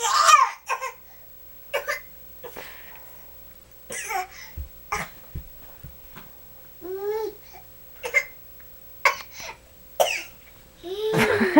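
Short playful fake coughs, about ten of them with pauses between, traded between a man and a baby. A baby's high voice rises and falls about seven seconds in and again near the end.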